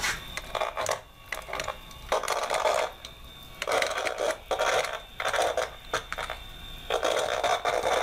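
Handheld inductive tone-tracer probe buzzing and crackling from its speaker in short uneven bursts as its tip is swept along the terminals of a telephone punch-down block, searching for the toned pair. A faint steady high whine sits underneath.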